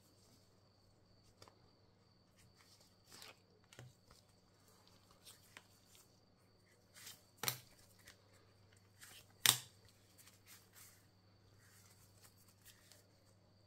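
Soft handling sounds of plastic ID cards sliding in and out of the pockets of a leather ID holder, with gloved hands rubbing and tapping the leather. Two sharper clicks come about seven and a half and nine and a half seconds in. A faint steady hum runs underneath.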